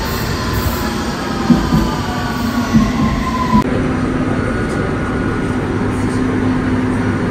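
London Underground train running, heard from inside the carriage: a whine falls steadily in pitch over the first few seconds, with a few sharp knocks. After that come a steady hum and the rumble of the wheels on the track.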